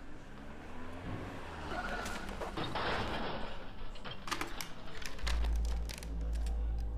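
A swelling hiss of noise over the first few seconds, then a run of sharp clicks as a cassette walkman is handled, then a deep low drone setting in about five seconds in.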